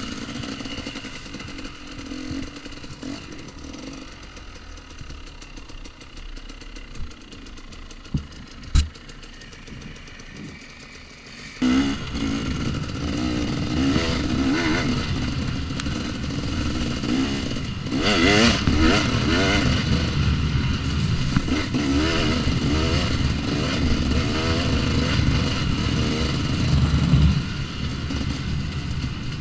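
2014 KTM 250 XC-W single-cylinder two-stroke dirt bike engine, ridden at low throttle with a couple of sharp knocks. About twelve seconds in it opens up, revving up and down under throttle, louder still from about eighteen seconds, and eases off near the end.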